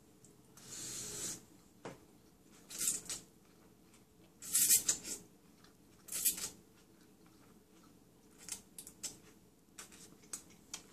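A person slurping ramen noodles: one longer airy slurp about a second in, then three shorter slurps, followed by soft mouth clicks of chewing near the end.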